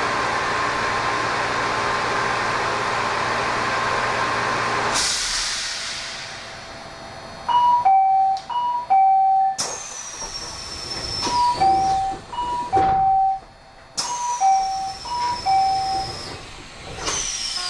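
Inside a stationary Kobe Electric Railway train: a steady hum that drops away about five seconds in. Then a two-note door chime rings over and over, high then low, and three sharp whistling hisses fall in pitch between the chimes, as the doors close before departure.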